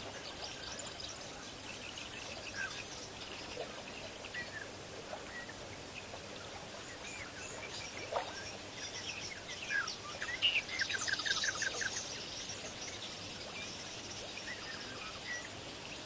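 Assorted birds chirping and calling over a steady background hiss, busiest a little past the middle, where a quick run of about six notes sounds.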